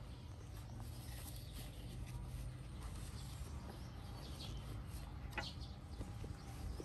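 Faint outdoor rural ambience: a low steady rumble with scattered short high chirps, most of them a little past the middle, and a single click.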